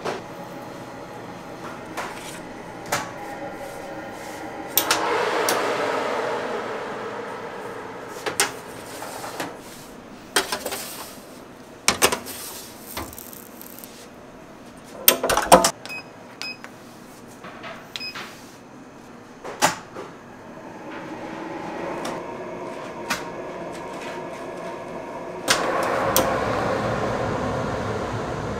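Bakery work sounds: scattered clicks and knocks of trays and utensils being handled, two spells of a steady rushing machine noise that each start suddenly, and a few short electronic beeps partway through.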